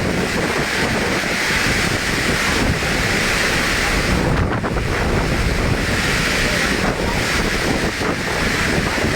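Strong wind blowing hard across the phone's microphone: a loud, continuous rush with a deep buffeting rumble.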